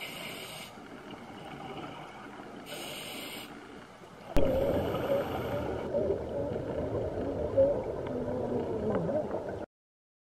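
Underwater sound of scuba diving: two short hissing breaths through a regulator, then, from about four seconds in, a louder wavering gurgle of exhaust bubbles close by. It cuts off abruptly near the end.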